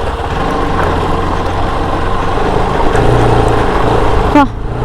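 Bajaj Pulsar RS200's single-cylinder engine running steadily at low speed while the bike rides over a loose, stony dirt track, with tyre and wind noise.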